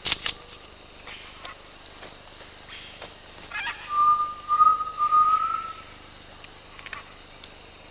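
Rainforest ambience with a steady high insect drone; about four seconds in, a single long whistled animal call, nearly level and rising slightly, lasting under two seconds. A sharp crack at the very start and a short rattling burst just before the whistle.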